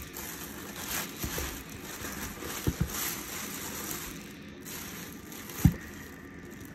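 Clear plastic bag crinkling and rustling as a sneaker is pulled out of it in a cardboard box, with a few dull thumps, the loudest near the end.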